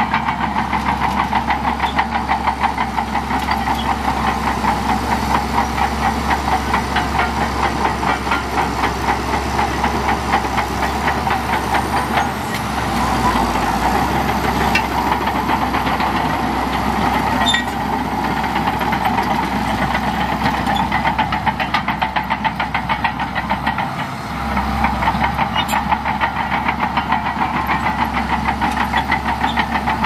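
Shantui DH17C2 bulldozer's diesel engine running with a rapid, even pulsing. For a stretch in the middle, from about 12 to 24 seconds in, the pulsing smooths out as the engine note changes.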